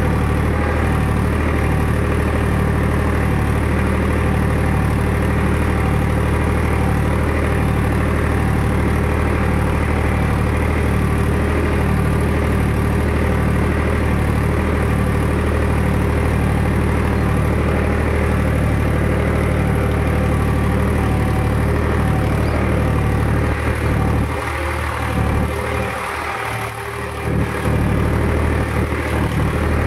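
Tractor diesel engine running steadily under load while pulling a cultivator through the field, easing off for a few seconds near the end.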